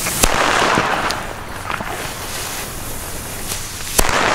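Black Cobra firecracker's fuse hissing and spitting through its red pre-burn, then a single sharp bang about four seconds in.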